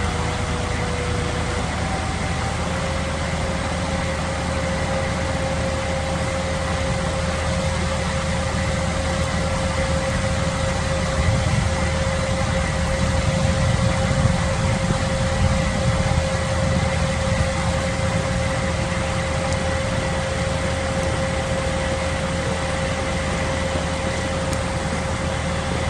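Heavy construction machinery's diesel engine running steadily under load, with a steady whining tone over the low rumble, swelling a little midway.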